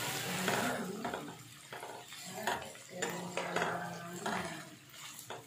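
Chunks of raw jackfruit and potato sizzling in hot oil in a nonstick pan, the sizzle strongest in the first second. A spatula stirs the pieces with several scrapes and knocks against the pan.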